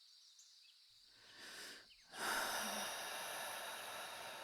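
A woman breathes in, then lets out a long, loud, exasperated sigh that slowly trails off, giving in reluctantly. Faint forest ambience with small bird chirps sits underneath.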